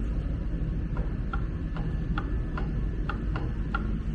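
Honda S2000 differential ring gear rocked back and forth against its locked pinion to check backlash: a series of light metallic clicks, about two or three a second, beginning about a second in, as the gear teeth knock together at each end of their free play. A steady low hum runs underneath.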